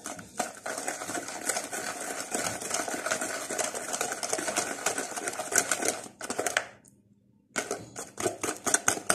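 Hand whisk beating egg whites and sugar in a plastic bowl set over a pan of hot water: a fast, continuous run of clicks and scrapes of the wires against the bowl. It is the stage of dissolving the sugar in the whites over steam for Swiss meringue buttercream. The whisking stops for under a second near the end, then starts again.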